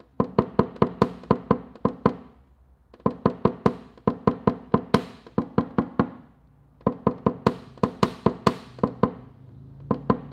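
Paintless dent repair tap-down: a tap-down tool knocked against a car body panel to level the high spots left by glue pulling. It comes in quick runs of about ten light taps, roughly five a second, each with a short ring, and pauses of one to two seconds between runs.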